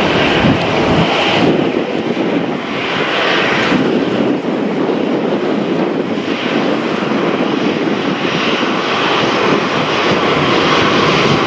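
Boeing 747-400's four General Electric CF6 turbofan jet engines at takeoff power, a loud, continuous jet noise whose upper hiss swells and fades slightly every few seconds.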